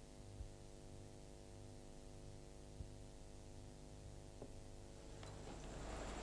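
Faint steady electrical mains hum on the soundtrack, a stack of even tones, with a few faint ticks. Near the end a hiss of room noise rises.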